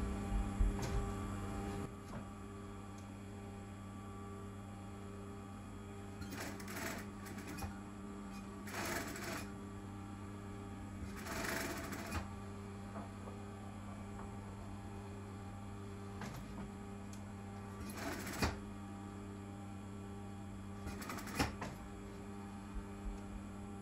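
Brother industrial single-needle sewing machine stitching satin: its motor hums steadily, with short, louder runs of stitching every few seconds as the fabric is fed under the presser foot.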